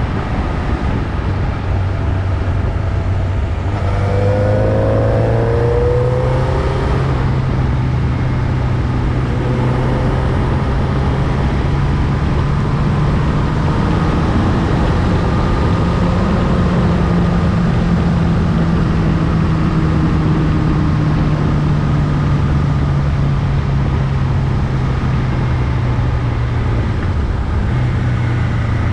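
Motorcycle engine running under way, with steady rush of wind and road noise over it. The revs climb about four seconds in, rise slowly, then ease off, with a short change in engine note near the end.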